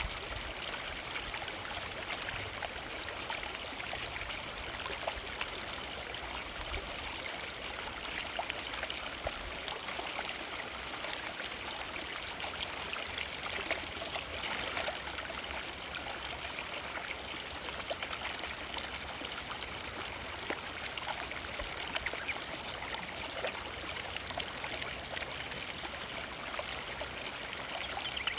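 River water flowing: a steady, even rush of running water.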